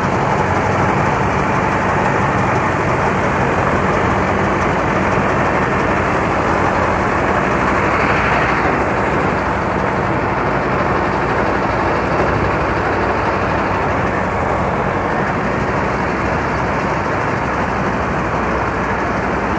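Mahindra combine harvester running steadily while harvesting rice: a constant engine hum under a dense mechanical rush from the cutting and threshing works, swelling slightly about eight seconds in.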